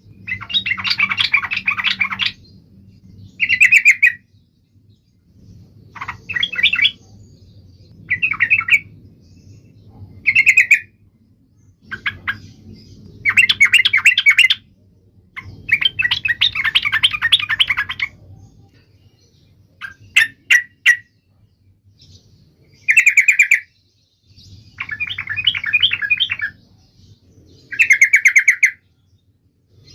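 Yellow-vented bulbul (trucuk) singing loudly in a run of separate phrases: short clear whistled notes alternating with longer rapid, bubbling chattering runs, about a dozen phrases with brief pauses between them.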